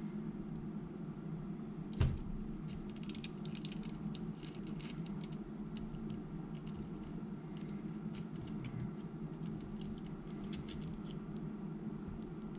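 Small clicks and light taps of a carbon fibre FPV drone frame being handled and checked on a workbench, with one louder knock about two seconds in, over a steady low hum.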